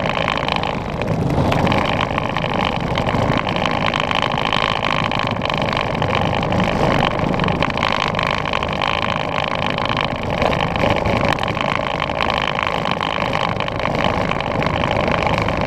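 Steady whir of a children's electric ride-on Ford Raptor toy truck driving over pavement: its small motors and gearboxes whining and its wheels rolling on the asphalt.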